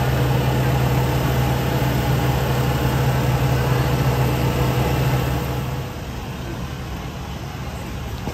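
An engine running steadily at a constant speed, a loud low hum that drops away about six seconds in, leaving a quieter background rumble.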